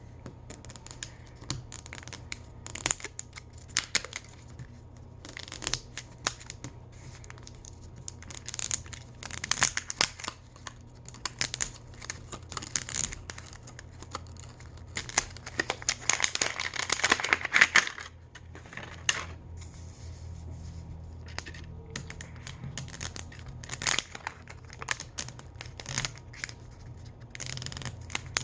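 Plastic toy packaging being torn and peeled open by hand: scattered crinkles, scratches and clicks, with a longer stretch of tearing a little past halfway.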